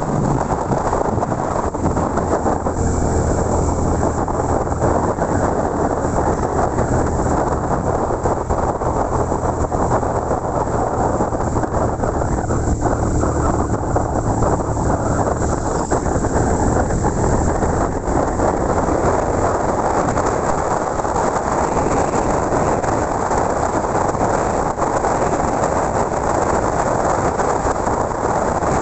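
Motorcycle riding at a steady speed: a constant rush of wind and road noise over the low hum of the engine, which drops back about two-thirds of the way through.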